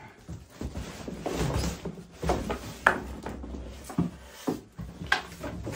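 Large cardboard shipping carton scraping and bumping as it is lifted off a plastic-wrapped, polystyrene-packed rowing machine, with rubbing stretches and a few sharp knocks.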